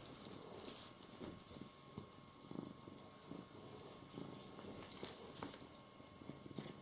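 Domestic cat purring quietly in uneven low pulses, with a few faint high clicks over it.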